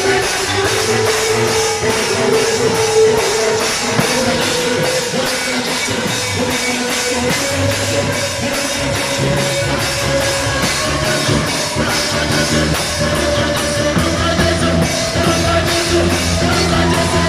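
Rock music: a drum kit keeps a steady beat under guitar, with a long held melodic line and a bass line underneath.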